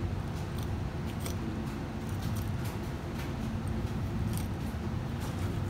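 Chef's knife cutting along a sea bream's backbone as the fillet is lifted off, with short faint scraping ticks of the blade on bone and fin every second or so over a steady low background hum.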